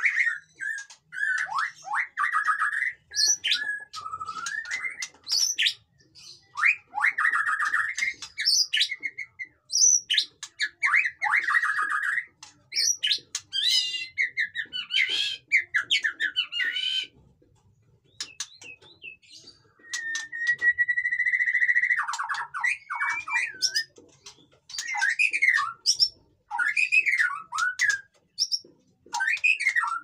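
White-rumped shama (murai batu) singing loud, varied phrases of whistles, chatters and fast rattling notes, with short breaks between phrases. A longer pause a little past halfway is followed by a long sliding whistle, then more short whistled phrases.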